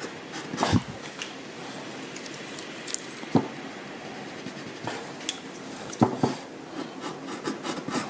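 2B graphite pencil hatching on drawing paper in short scratchy strokes, with a few sharp taps.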